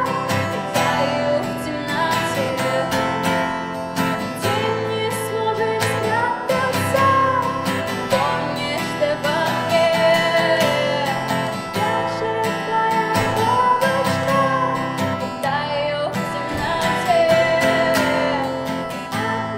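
Strummed acoustic guitar music with a wavering melody line over the chords.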